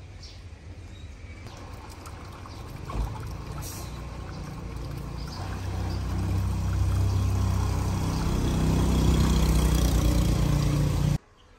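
Water pouring and splashing into a garden fish pond, with a low rumble underneath, growing steadily louder and then cutting off suddenly near the end.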